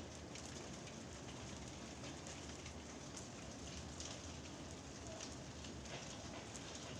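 Rain from a thunderstorm falling steadily, with many separate drops ticking.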